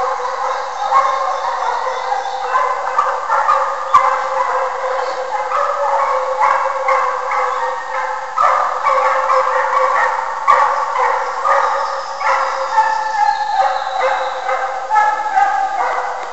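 Two Russian hounds in full cry on a hare's trail: a continuous chorus of overlapping baying voices.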